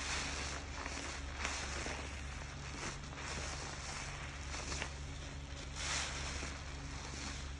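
A foam-loaded kitchen sponge being squeezed and worked, the thick soap lather squishing and crackling in repeated swells about once a second.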